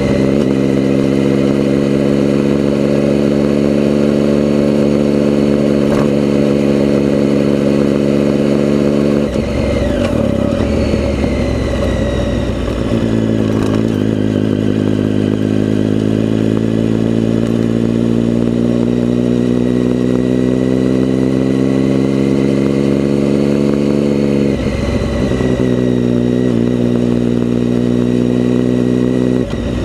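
Motorcycle engine running under way with a steady, even note. The note changes abruptly about nine seconds in, climbs gradually and holds, then changes again twice near the end.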